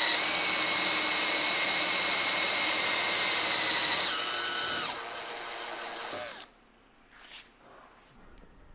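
Electric drill running steadily at high speed as its specially machined bit cuts a divot into the shaft through the tapped set-screw hole of an aluminium hub. At about four seconds the drill slows to a lower whine, then spins down and stops at about six and a half seconds.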